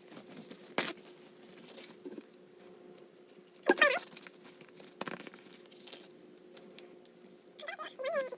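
Tissue paper crinkling and tearing in a few short rustles, with two brief high squeaky sounds, one about four seconds in and one near the end, over a faint steady hum.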